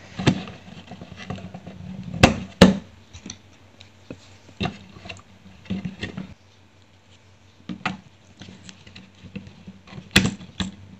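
18650 lithium-ion cells being pushed into plastic battery holders on a circuit board: scattered clicks and handling noise, with two sharp snaps a fraction of a second apart about two seconds in and another near the end.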